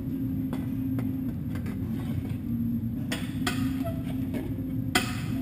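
Baileigh kick shrinker clacking shut on an 18-gauge cold-rolled steel panel, about six sharp metallic strokes at uneven intervals, each bite shrinking and gathering the steel. A steady low hum runs underneath.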